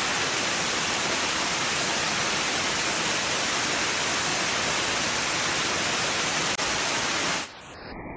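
Waterfall rushing close by: a loud, steady, even hiss of falling water that stops suddenly about seven and a half seconds in.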